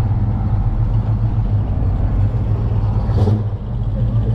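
Classic Dodge coupe's V8 engine idling at low speed with an even, rhythmic low rumble as the car rolls past close by. A brief hiss comes about three seconds in.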